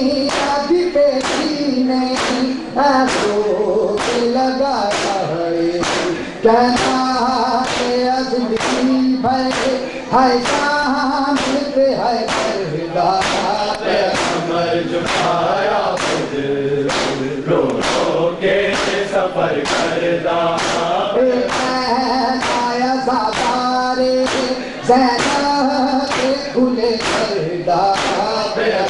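Men chanting a noha (Shia lament) together, over a steady beat of open hands slapping bare chests in matam.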